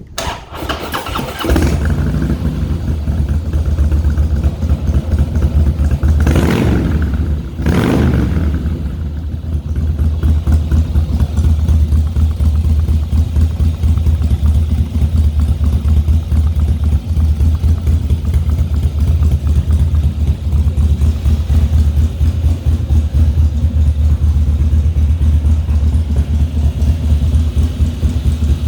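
2017 Harley-Davidson Softail Slim's Twin Cam V-twin engine starting after a brief crank, then idling with a steady low rumble. It is revved briefly twice, about six and eight seconds in.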